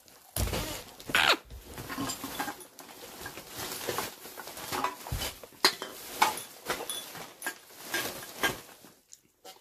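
Close handling noise: irregular rustling, crinkling and sharp clicks as a body and hands move right against the microphone, with plastic candy packaging being handled.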